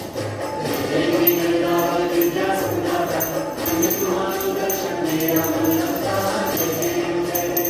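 Hindu devotional music: a sung melody over jingling bells and small percussion, the kind of aarti song that accompanies waving a lamp before an idol.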